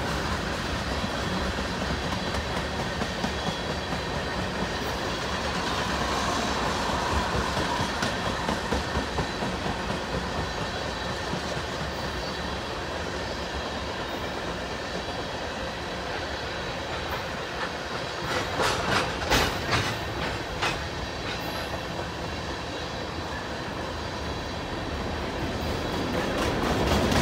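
Freight cars of a mixed manifest train, boxcars then tank cars, rolling past with a steady clatter of steel wheels on the rails. A cluster of louder clanks comes about two-thirds of the way through.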